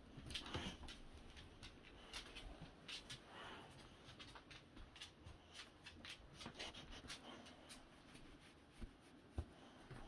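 Near silence with faint rustling and scattered light clicks.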